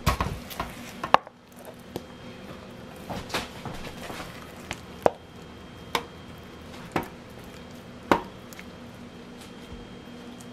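Wooden spoon knocking and scraping against metal loaf pans and a stainless steel mixing bowl as cake batter is scraped out and spread: several sharp knocks spaced a second or so apart.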